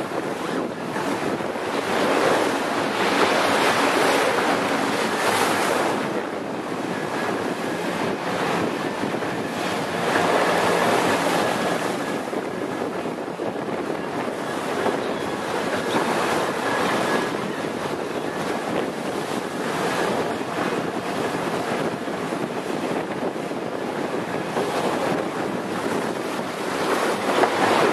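Wind buffeting the microphone over water rushing along the hull of a sailing yacht under way. The rush swells and eases every several seconds.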